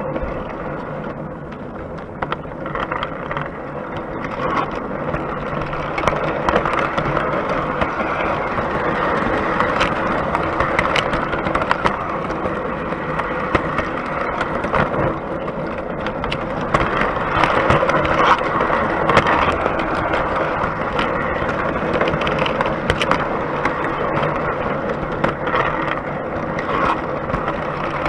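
O gauge three-rail model train running on its track, heard from inside a carriage: a steady rumble and rattle of wheels on rails with frequent sharp clicks, swelling louder from about six seconds in.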